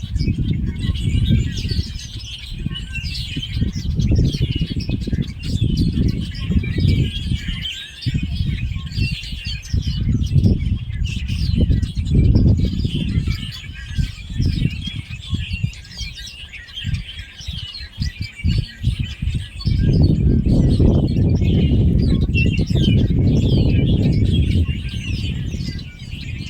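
Many small birds chirping and twittering together in a dense, continuous chorus. A loud, gusty low rumble runs underneath and swells strongly about twenty seconds in.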